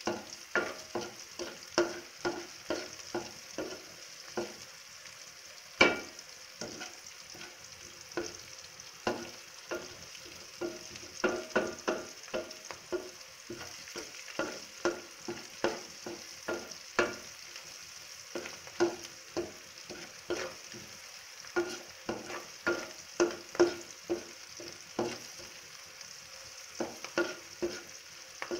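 Sliced onions and green chillies frying in oil in a metal pan with a steady sizzle, stirred with a wooden spatula that scrapes and knocks against the pan about twice a second. One knock about six seconds in is louder than the rest.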